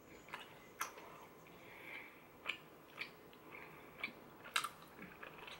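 Faint closed-mouth chewing of a soft, chewy chocolate milk candy, with a few scattered wet clicks of the lips and tongue.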